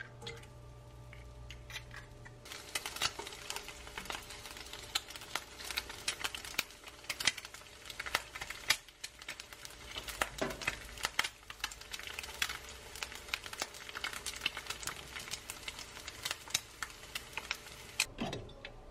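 An egg frying in hot oil in a nonstick pan: sizzling with dense, irregular crackling pops, starting about two seconds in.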